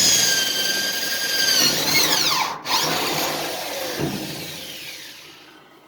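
Handheld electric power tool running with a steady high whine, which sags in pitch and cuts out briefly about two and a half seconds in. It then coasts down with a slowly falling whine that fades away.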